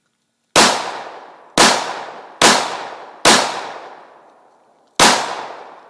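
Five pistol shots, the first four about a second apart and the fifth after a pause of about a second and a half, each trailing off in a fading echo.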